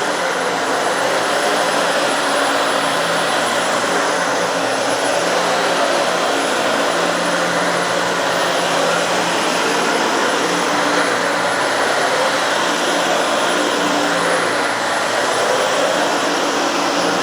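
Dyson Slim Ball upright vacuum cleaner running steadily on carpet, sucking up spilled kitty litter.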